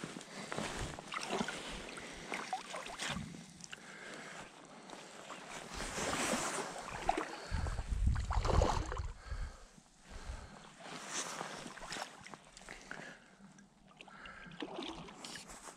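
Water splashing and sloshing in uneven fits, with rustling handling noise, as a hooked trout is brought to a landing net; loudest about halfway through.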